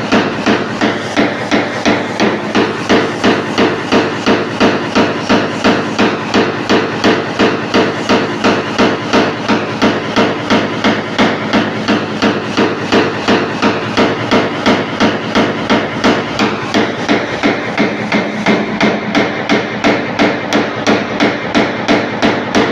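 A paintless dent repair tap-down punch is struck with a small hammer against a car body panel in quick, even taps, about two and a half a second, each with a short metallic ring. The taps stop suddenly near the end. This is the finishing stage of the dent repair: knocking down small high spots to level the grainy orange-peel texture of the paint.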